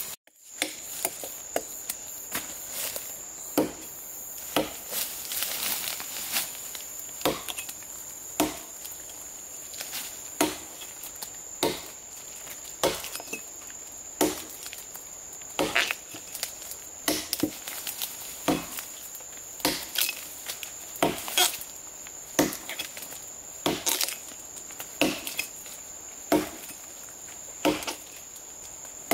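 A hand tool chopping in a steady rhythm, about one strike a second, with a constant high-pitched insect drone behind it.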